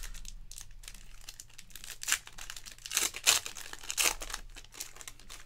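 Foil wrapper of a 2023 Panini Elite Extra Edition Baseball trading card pack being torn open and crinkled by hand: a run of sharp crinkles and crackles, loudest about two to four seconds in.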